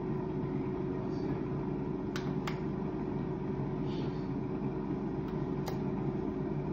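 Steady fan-like hum with a held tone underneath, and three light clicks of a spoon against the pan as diced vegetables are spooned into the ham cups, two close together about two seconds in and one near the end.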